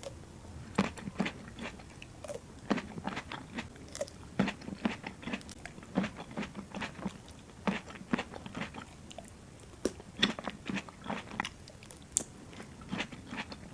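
Close-miked ASMR eating of grapes: irregular crisp, wet bites and chewing, several crunches a second in clusters with short pauses between.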